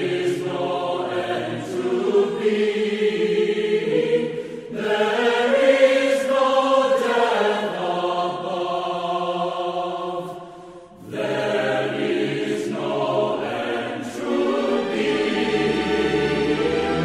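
Background music of a choir singing in long held phrases, with short breaks about five and eleven seconds in.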